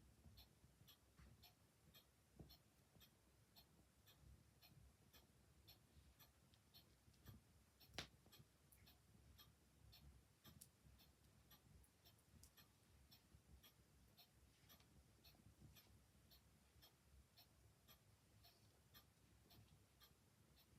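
A clock ticking steadily, about two ticks a second, over the soft crackle of a fire, faint overall. About eight seconds in, one sharper crack from the fire stands out as the loudest sound.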